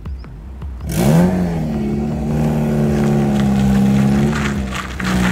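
Suzuki Swift's petrol engine revs up sharply about a second in and is held at steady high revs, easing off briefly before rising again near the end.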